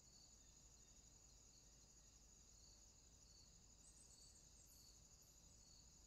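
Faint, steady high-pitched insect chirring, typical of grasshoppers and bush crickets in summer, with a softer chirp repeating about once a second.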